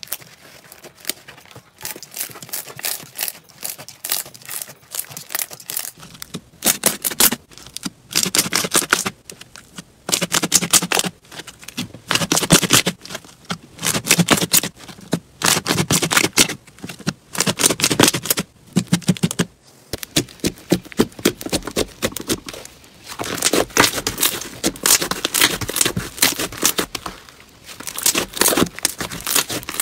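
Hands squeezing, pressing and stretching slime, giving dense crackling and clicking pops in repeated bursts about a second long, one burst per squeeze.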